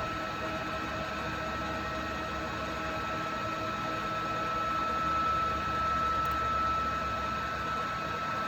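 Bohner & Köhle MF1-1400 boring and milling machine running under power, a steady high whine over a steady hum and hiss.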